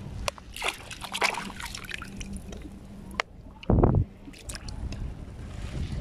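A hand sloshing and splashing through shallow seawater over sand and seagrass, with trickling and dripping, and a loud low thump about four seconds in.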